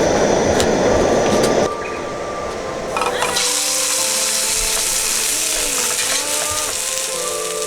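A steady rushing noise stops abruptly just under two seconds in. After a click about three seconds in, a bright steady hiss of food sizzling in a pan runs on, with soft background music of held notes over it.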